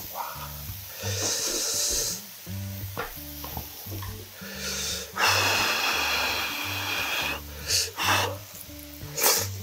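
Close-miked eating sounds of gnawing meat off a grilled pork back rib: two long hissy sucking sounds, about a second in and from about five seconds in, then short wet clicks of chewing near the end. Background music with a steady low beat runs underneath.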